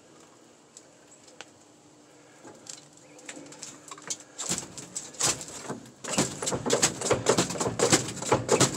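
1967 International Harvester's clutch pedal and linkage creaking and squeaking as the pedal is pushed down, a quick uneven run of clicks and squeaks starting about halfway in. The pedal goes down without feeling like a clutch, which the owner thinks may mean something under there has come loose.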